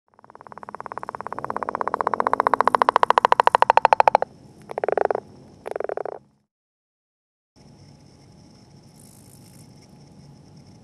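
Northern leopard frog giving its breeding call: a long rattling snore of rapid pulses that builds in loudness for about four seconds, followed by two short grunts. Then only faint background remains.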